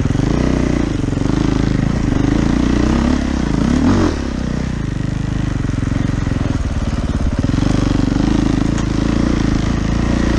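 Husaberg FE450 four-stroke single-cylinder dirt bike engine at low trail speed, its revs rising and falling in short blips over the first few seconds, then running steadier.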